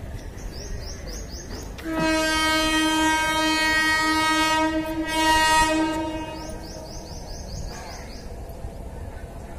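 Indian Railways locomotive horn sounding one long steady blast of about four seconds, starting about two seconds in, over a low rumble. Quick runs of high chirps come before and after it.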